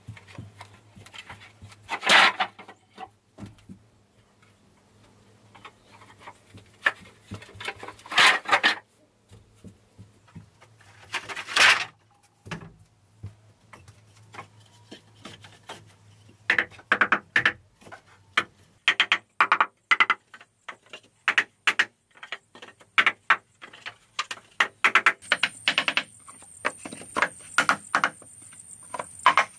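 Hollow bamboo poles clattering as they are set down and handled. Three loud clatters come in the first twelve seconds, then a run of sharp wooden clacks and knocks as cut bamboo lengths are laid side by side.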